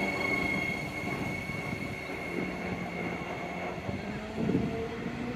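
Transperth B-series electric multiple unit pulling away and receding, its steady high motor whine and running noise fading as it goes.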